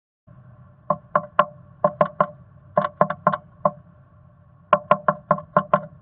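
Black-capped chickadee pecking at the wood inside a wooden nest box: sharp knocks in quick bursts of three to six, about seventeen in all, the longest run near the end. A steady hum runs underneath.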